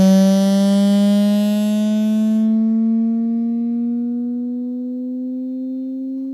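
Dell M18x laptop speaker playing a slowly rising test tone, with a harsh buzzing rattle on top for the first two and a half seconds that then stops, leaving the tone clean. The rattle is the laptop's right side vibrating, a fault that began after a motherboard replacement.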